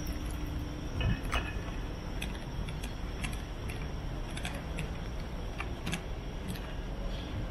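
Steady low background rumble with a thin steady high tone and scattered light clicks every second or so.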